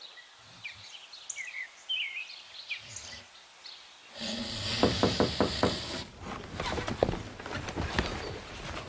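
Faint bird chirps, short high calls, for about four seconds. Then a louder hiss takes over, with a quick run of knocks or clicks.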